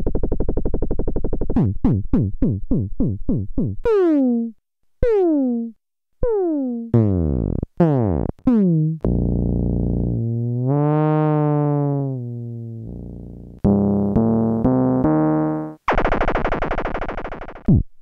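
Neuronoiz software synthesizer, whose sound engine simulates spiking and bursting neurons with the Hindmarsh–Rose model, playing a string of demo sounds one after another. There are buzzy tones, fast repeated plucks at about four a second, short pings that fall in pitch, a long tone that bends up and down in pitch around the middle, then stepped notes and a bright buzzy tone near the end.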